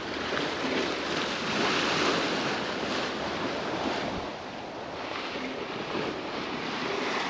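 Sea water rushing and splashing along the hull of a sailboat under way, with wind on the microphone. The wash swells and eases, loudest about two seconds in.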